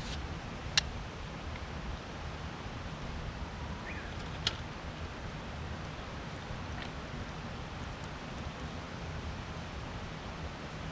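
Steady outdoor background noise with a low rumble, broken by two sharp clicks, about a second in and about halfway through.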